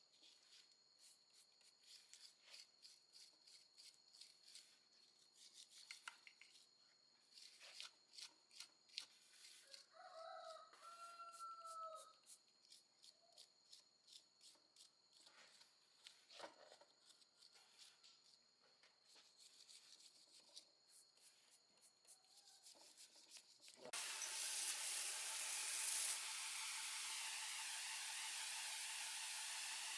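Scattered light clicks and rubbing of hand work, with a rooster crowing once in the background about a third of the way in. Near the end a steady hiss starts suddenly and is the loudest sound.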